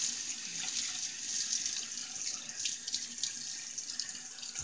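Bathroom sink tap running steadily, with irregular splashes as water is wetted onto the face before shaving.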